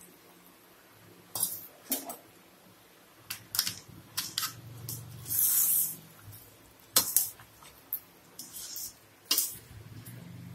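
Metal ladle knocking and scraping against the side of an aluminium kadai while stirring a thick chicken curry: a series of sharp, irregular clanks, with a short scraping hiss about halfway through.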